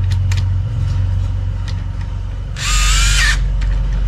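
A power drill-driver spins briefly, for under a second, about two and a half seconds in, running a T30 Torx bolt. Underneath is a steady low hum, with a few light clicks of metal parts being handled near the start.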